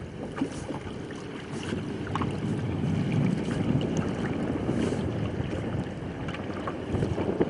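Wind buffeting the microphone on an open boat over choppy water: an uneven low rumble that swells a little in the middle, with a few faint knocks.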